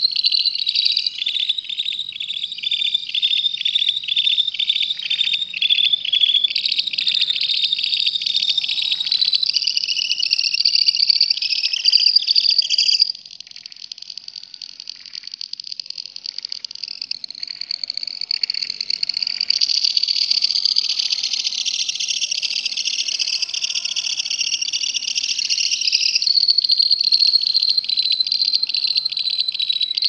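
Caged lovebird singing a long, unbroken "kekekan" (ngekek) chatter: a rapid, high-pitched trill of repeated chirps. It drops in loudness about 13 seconds in, then builds back up and carries on.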